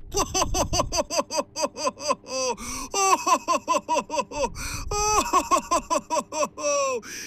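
A high-pitched cartoon-style voice laughing in quick repeated bursts, about four to five a second, broken by a few longer drawn-out calls.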